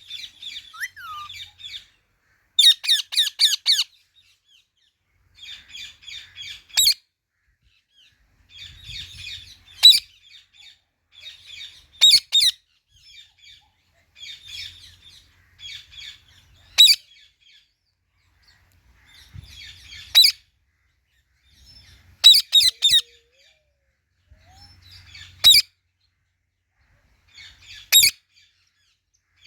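Indian ringneck parrot chattering in quick runs of chirps lasting a second or so, with short, sharp, loud squawks about every three seconds.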